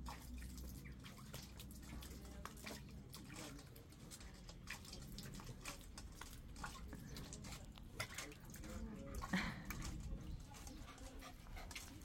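A Shiba Inu playing in a water bowl: scattered small splashes and drips from pawing at the water, mixed with sounds from the dog itself, a little louder about nine seconds in.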